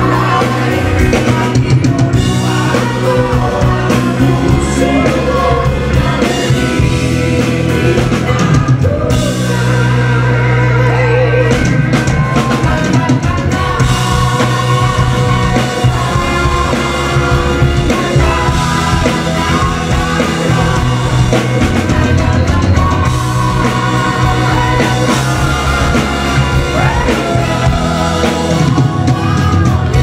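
Live band with a drum kit playing loudly while a man sings lead through a microphone, amplified over the venue's sound system.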